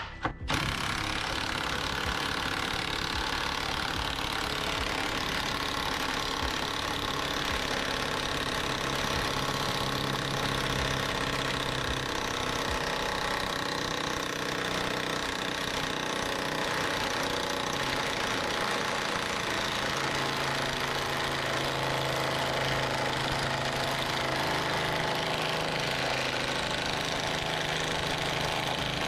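Impact wrench hammering continuously, without a pause, as it runs out a seized bolt that has been heated red hot and keeps trying to bind. It starts about half a second in and is loud enough to leave the user's ears ringing.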